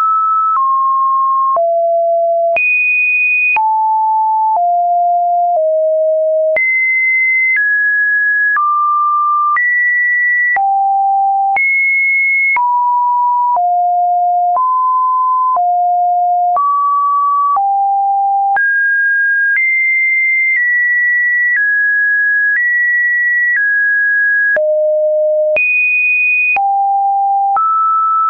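Webdriver Torso test-video tones: a string of computer-generated pure sine-wave beeps, each held about a second before jumping to a new, seemingly random pitch in the middle-to-high range, with a faint click at each change.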